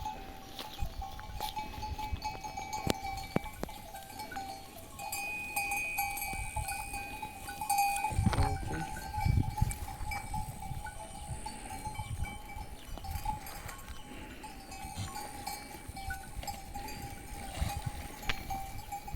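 Bells on grazing livestock ringing, over a steady mid-pitched tone, with low rumbling knocks about eight seconds in.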